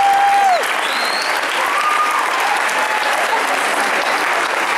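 Audience applauding steadily, with a couple of held whooping cheers and a short rising whistle in the first two seconds.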